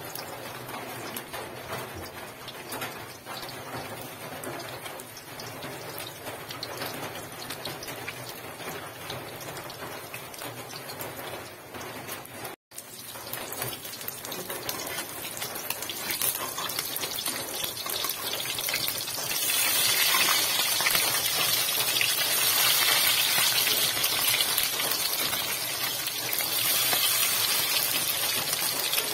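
Anchovy, egg and moringa omelette frying in hot oil in a wok, a steady sizzle and crackle. The sound cuts out for an instant near the middle, and the sizzle gets louder and brighter in the last third.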